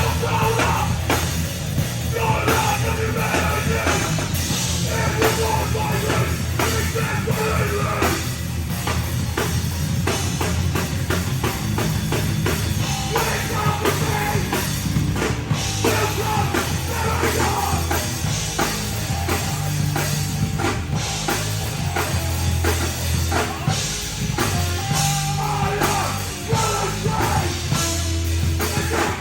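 Live heavy rock band playing a song loud, with a busy drum kit driving it.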